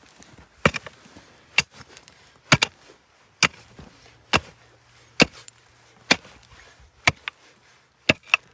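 Pickaxe striking packed earth and stones over and over, about one blow a second, with about ten sharp strikes in all. The digger says he is not sure, but the blows give a hollow sound, as if over a void underground.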